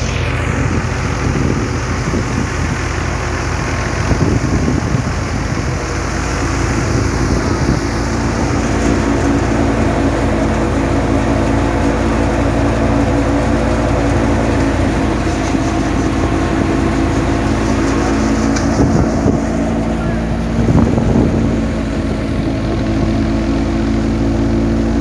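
Engine of a wheat-harvesting machine running steadily under load, with a brief louder stretch about four seconds in and again near the end.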